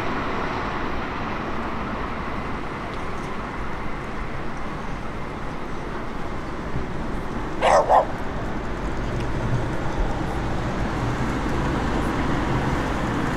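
A dog barks twice in quick succession about eight seconds in, over a steady rumble of rail traffic.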